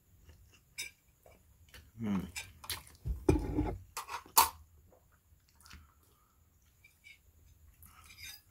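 Instant mi goreng noodles being slurped off a fork and chewed, with wet mouth smacks and sharp clicks; the loudest bursts come between about two and four and a half seconds in.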